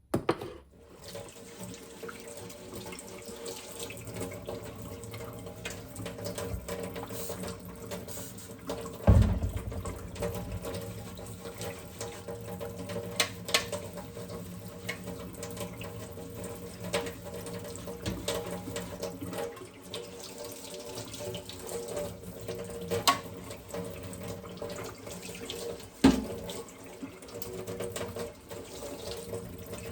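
Water running from a tap into a sink, with a few sharp knocks and clinks, the loudest about a third of the way in and again near the end.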